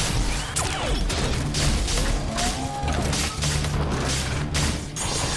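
Animated robot-transformation sound effects: rapid mechanical clanks, impacts and whooshing sweeps over a dramatic music score with a steady bass line. About five seconds in, the effects cut off sharply.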